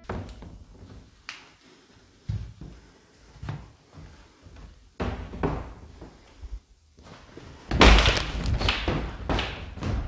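Irregular dull thumps and knocks, about a dozen, with a louder stretch of dense knocking and rustling about eight seconds in.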